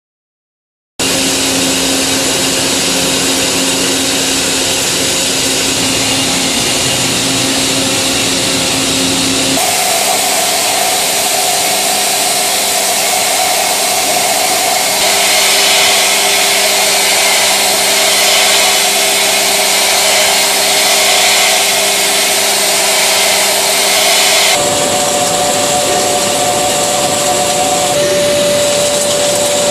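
Matsuura CUBLEX-25 CNC machine cutting metal: a loud, steady mix of cutting and spindle noise with humming tones. It starts about a second in, and the tone jumps abruptly in pitch twice, about ten and twenty-five seconds in.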